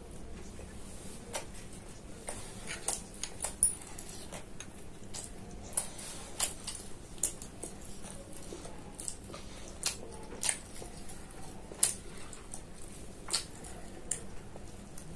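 Close-miked mouth sounds of someone eating mutton liver curry with roti: irregular wet lip smacks and sharp chewing clicks.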